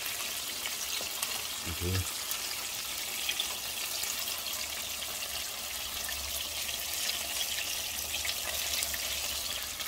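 Chicken wings deep-frying in hot oil in an enamel Dutch oven pot, a steady sizzle.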